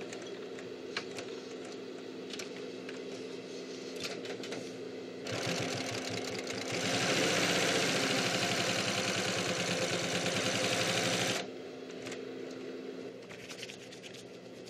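Sewing machine stitching leather. From about five seconds in it runs in a fast, even rattle, gets louder a second and a half later, and stops suddenly about eleven seconds in.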